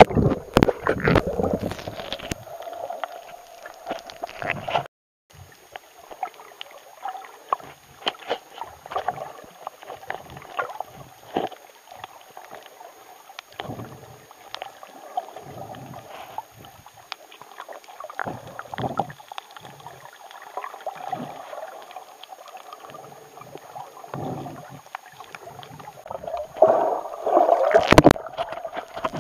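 Underwater water sound picked up by a camera just below the sea surface: muffled sloshing and gurgling with scattered low knocks. There is louder splashing as the camera goes under at the start, a brief dropout about five seconds in, and more splashing near the end.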